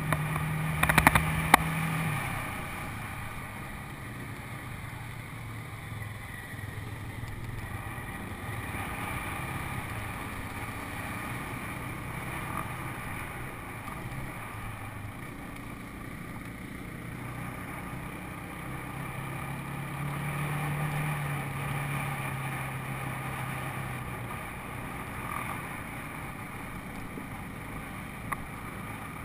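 Four-wheeler (ATV) engine running under way, its note dropping about two seconds in, climbing again past the middle and then easing off. A few sharp knocks come near the start.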